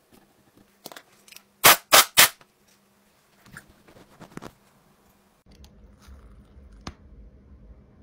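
Stiff bristle brush scrubbing an iPhone's charging port: three quick, loud, scratchy strokes about two seconds in, followed by a few softer scrapes.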